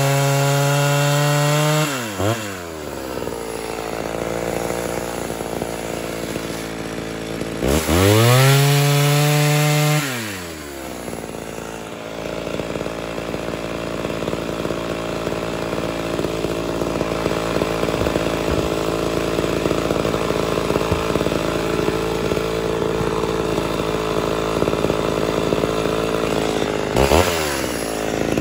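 Ported Homelite Super XL Auto two-stroke chainsaw revving high and dropping back twice in the first ten seconds. It then runs under load at lower, wavering revs while the chain cuts through a firewood log for about fifteen seconds. Near the end it revs up again.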